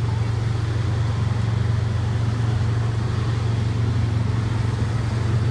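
Small garden-tractor engine running at a steady drone.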